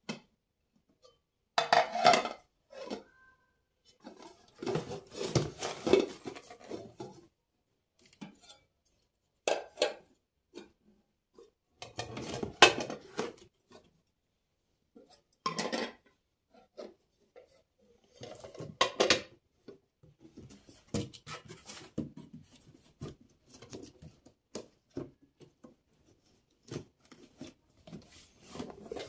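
Dishes and cutlery clattering and clinking as they are handled, in a string of separate bursts with short quiet gaps between them.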